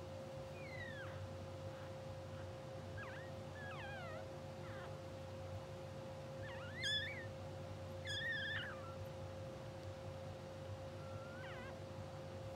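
Newborn English bulldog puppies squeaking in their sleep: a string of thin, wavering high squeaks, the two loudest a little past the middle and a faint one near the end. A steady hum runs underneath.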